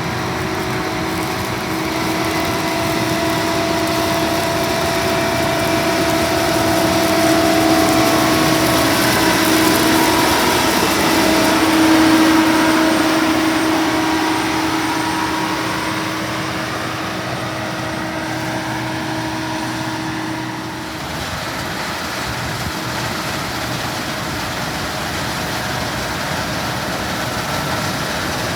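Case 2388 combine harvester running steadily: an engine and machinery drone with several steady held tones. It swells louder in the first half, dips briefly, then carries on evenly.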